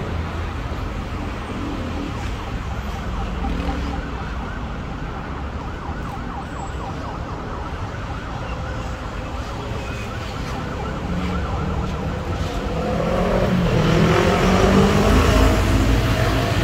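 Steady city road-traffic rumble with a faint wavering, siren-like tone. About thirteen seconds in, a louder sound with several pitched tones swells up and stays loud.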